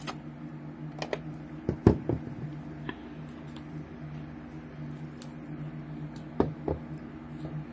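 Light clicks and knocks of nail polish bottles and tools being handled on a tabletop, the loudest about two seconds in, over a steady low hum.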